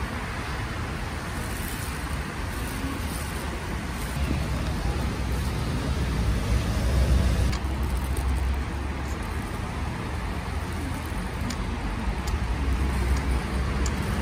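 Steady rumble of road traffic, swelling to its loudest about seven seconds in as a vehicle goes by, with a few faint clicks in the second half.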